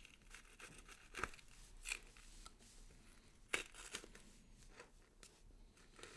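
Gory horror foley effect of tearing and crunching: irregular faint crackles with two sharp snaps, about a second in and about three and a half seconds in.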